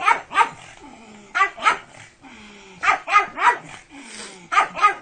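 Pug barking in quick runs of two or three short barks, four runs in all, with fainter low falling notes between the runs.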